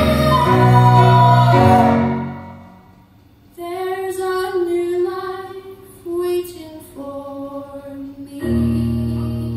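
Small vocal ensemble singing live in harmony with keyboard accompaniment. A held full chord dies away about two seconds in. After a short pause a single voice sings a phrase, and the ensemble and keyboard come back in near the end.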